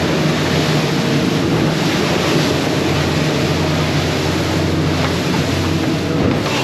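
Outboard motors of a Sea Hunt Gamefish 30 running at speed as the boat rides big ocean rollers, with water rushing along the hull and wind buffeting the microphone.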